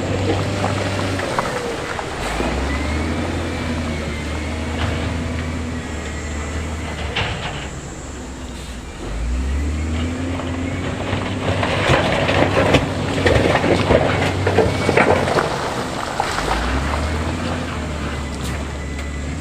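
Heavy diesel earthmoving machine working: the engine note climbs and falls back three times, about every seven seconds, with clattering and knocking in the middle of the clip.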